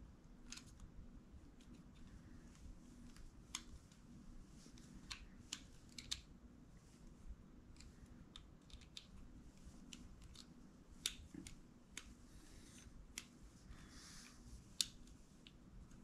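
Faint, irregular metallic clicks and light scraping of a small screwdriver turning a screw in a smart door lock's metal housing, fastening the battery cover back in place.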